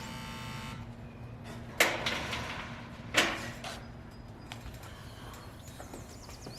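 A brief ringing tone, then two sharp knocks about a second and a half apart, each dying away quickly, with a few faint ticks after.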